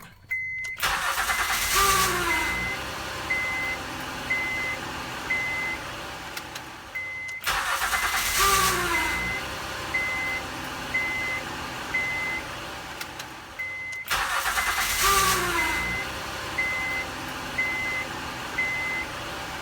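2008 Honda Odyssey's V6 starting, three times over: each time the failing starter motor gives a brief moan that falls in pitch as it engages, then the engine catches and runs at idle while a chime beeps steadily, about three beeps every two seconds. The moan marks a starter motor going bad, cured by replacing the starter.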